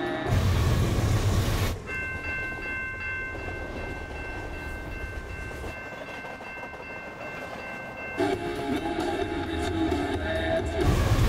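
A loud low rumble from a passing vehicle in the first two seconds, then a freight train rolling past with a steady high-pitched ringing tone held for about six seconds over the rumble of the cars.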